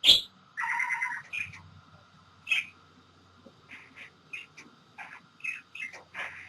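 A bird chirping and calling in short, separate notes, with one sharp loud call right at the start and a longer call about a second in.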